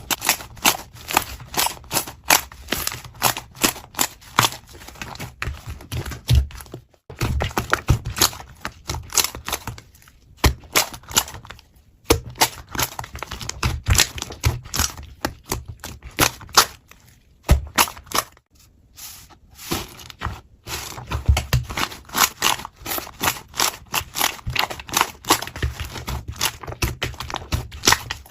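Slime being squeezed and worked, giving dense, irregular crackling clicks and pops, with a few brief pauses.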